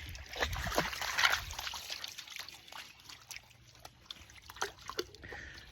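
Shallow creek water trickling, with small splashes from wading in it, louder in the first second and a half and then fainter.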